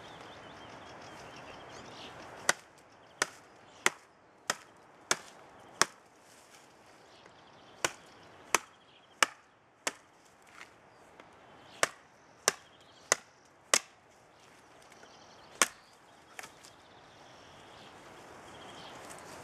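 Large Sami knife (leuku) chopping into a wooden branch: about fifteen sharp chops, roughly two-thirds of a second apart, in a few runs with short pauses between.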